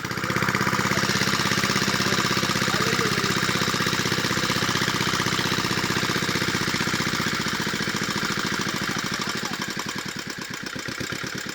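A small engine running steadily with a fast, even chugging, fading gradually over the last few seconds.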